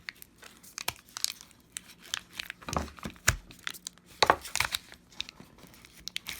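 Double-sided adhesive tape under a MacBook Pro battery cell tearing and crackling as the cell is pried up off the case: irregular crackles and snaps, a few louder tears in the middle.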